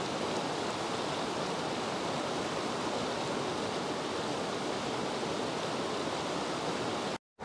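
River water rushing over rocks and through rapids: a steady, even rush. It cuts out for a moment near the end.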